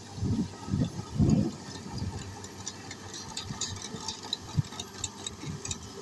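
Komatsu D155A crawler bulldozer pushing sand: its diesel engine running under load while its steel tracks clank and rattle, with a few low thumps in the first second and a half.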